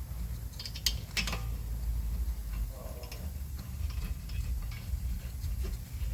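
A few sharp metallic clicks about a second in, then lighter ticks, from tools and brake parts being handled at the rear brake, over a steady low hum.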